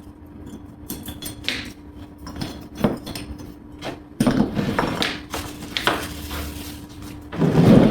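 Ceramic table torches being handled and set down on a hard surface: scattered clinks and knocks, with a louder cluster of thumps about four seconds in and another near the end.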